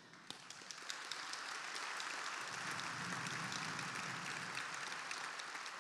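Large seated audience applauding: the clapping builds over the first second or two, holds, and begins to thin out near the end.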